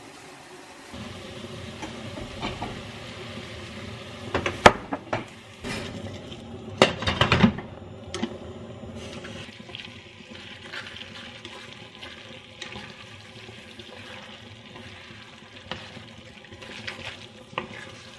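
Food sizzling in a frying pan as it is stirred and tossed with a wooden spoon, with a cluster of louder knocks and scrapes of the spoon against the pan about four to five seconds in and again around seven seconds in.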